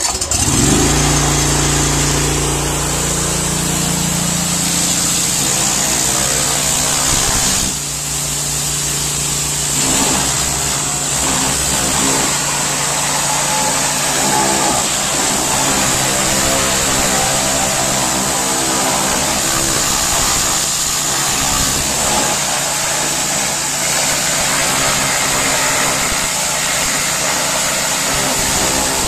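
Honda GX690 V-twin engine of a 7000 PSI belt-drive pressure washer rising to speed just after starting, then running steadily. Over it, a constant hiss from the high-pressure water jet blasting paint off metal.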